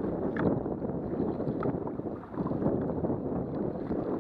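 Steady rushing of wind on the microphone mixed with water moving past a kayak's hull, with a few faint ticks.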